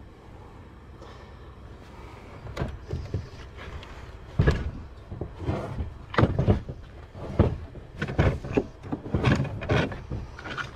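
Irregular metal knocks and clanks as a bench vise is loosened and a metal sinker mould is pulled apart by hand, starting about two and a half seconds in and coming every half second or so after that.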